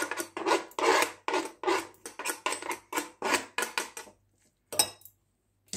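Knife blade scraping grated cucumber off a plastic cutting board into a bowl: quick repeated scrapes, about four a second, that stop about four seconds in, followed by a single sharp tap near the end.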